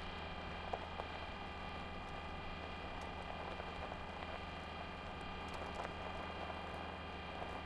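Steady whirring hum of the Curiosity rover's drive motors as it drives, with several high whining tones and a few faint crackles from the wheels.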